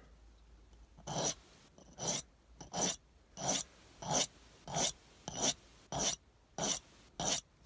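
Knife blade drawn across a small two-sided sharpening stone wetted with spit: about ten even rasping strokes, roughly one every 0.6 seconds, starting about a second in, to grind out small nicks in the edge.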